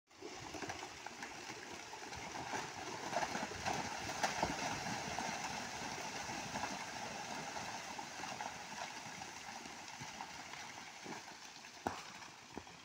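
Landslide: soil and rocks sliding and tumbling down a hillside, a continuous rumbling rattle of many small knocks. It is loudest a few seconds in and eases off toward the end, with a couple of sharper knocks near the end.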